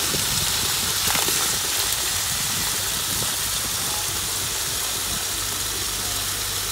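Concrete grout gushing from a pump hose nozzle into the cells of a block wall, a steady wet rushing over the continuous hum of the grout pump's engine.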